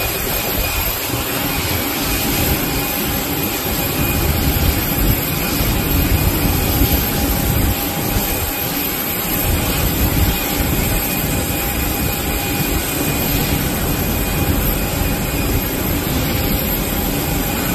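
Steady jet aircraft noise: a continuous rumble and hiss with a few faint steady whining tones.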